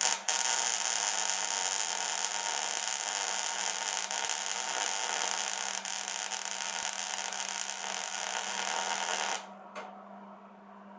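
Welder arc crackling in one continuous run of about nine seconds, after a couple of short sputtering starts, then cutting off suddenly: heat being welded into a stud stuck in an LS cylinder head to free it.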